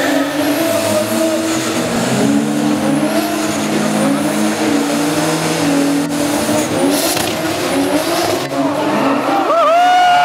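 Several drift cars doing a burnout together: engines held at high revs at a steady pitch over the hiss of spinning rear tyres. Near the end a loud voice, likely an announcer, cuts in over the noise.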